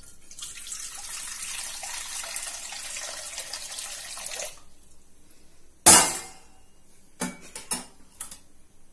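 Water poured in a stream into a metal kadai, splashing steadily for about four and a half seconds and then stopping. About a second later comes a single sharp knock, the loudest sound, followed by a few lighter knocks.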